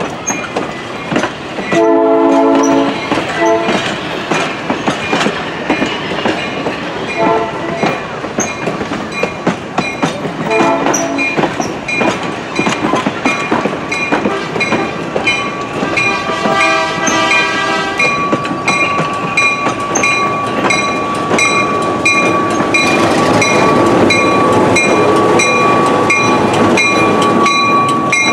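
Locomotive sounding several short blasts and one longer blast of about two seconds on its horn/whistle, while its bell rings steadily and the train runs.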